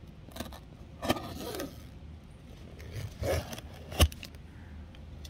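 Knife slitting the packing tape on a cardboard box: two short scraping rips, about a second in and about three seconds in, then a sharp click at about four seconds.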